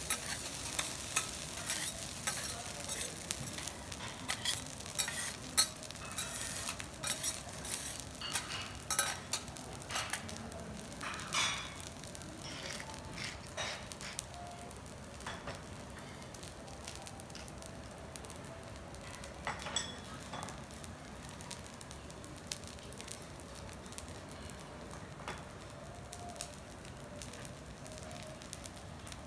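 Garlic rice with egg frying on a flat steel teppanyaki griddle: steel spatulas scrape and click against the plate as the rice is chopped and stirred, over a steady sizzle. About halfway through the clatter dies away, leaving the spread-out rice sizzling with only a few clicks.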